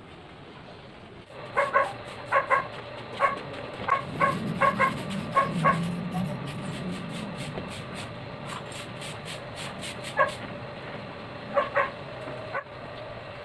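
A dog barking in short, high yips: a run of about ten over four seconds, then a few more near the end.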